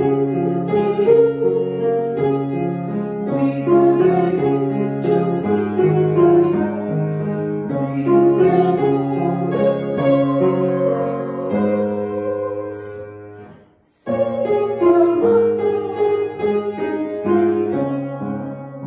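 A woman singing a song to her own grand piano accompaniment. About two thirds of the way through, a long held note fades and cuts off, there is a brief silence for a breath, and the singing and piano pick up again: a fermata hold, cut-off and resumption.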